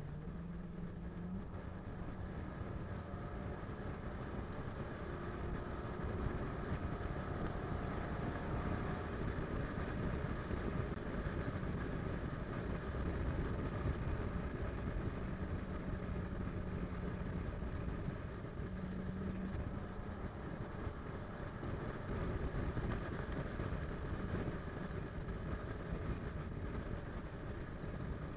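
Car driving at highway speed: steady road and tyre noise with the engine running underneath. A low hum rises out of it briefly near the start and again about two-thirds of the way through.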